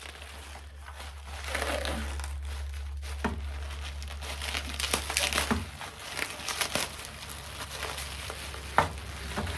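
Packing material crinkling and rustling as a mailed toy is unwrapped, with scattered clicks and one sharper snap near the end.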